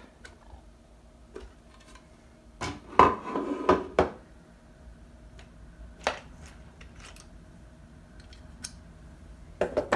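Hard 3D-printed plastic parts of a model V8 engine clacking and knocking as they are lifted off the block and set down on a countertop: a quick burst of knocks about three seconds in, a single sharp click around six seconds, light ticks, and a few more clacks near the end.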